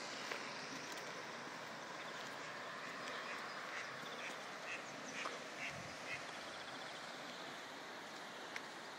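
A duck quacking in a run of short calls through the middle, over a steady rushing hiss.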